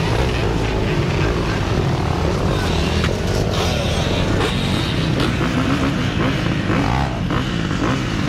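Several dirt bike and ATV engines running close by, a steady low rumble with some revving that wavers in pitch early on, and a few short sharp noises in the middle.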